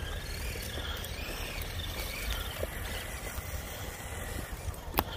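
Electric RC rock crawlers (a Traxxas TRX-4 and a Redcat Gen7 Pro) creeping along a dirt trail: a faint, steady motor and gear whine over a low rumble, with one sharp click near the end.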